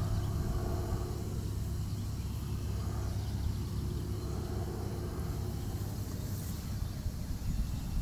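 Steady, low outdoor background rumble, with no siren sounding.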